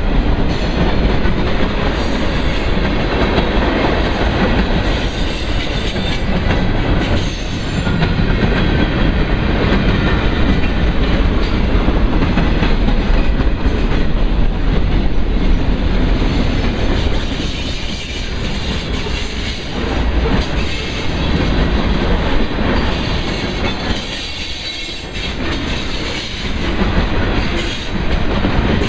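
Freight train rolling past close by: a long string of tank cars, boxcars and covered hoppers running over the rails, loud and steady with a few brief dips.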